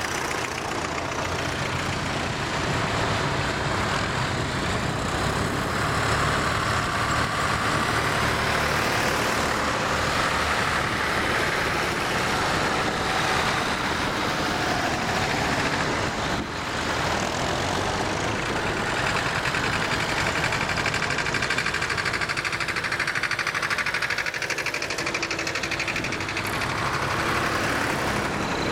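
Several vintage farm tractor engines running as a column of old tractors drives past one after another, their engine noise overlapping in a steady mix.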